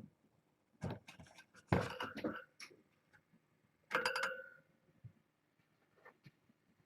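Clattering knocks on a hard dish, in three bursts; the last, about four seconds in, rings briefly.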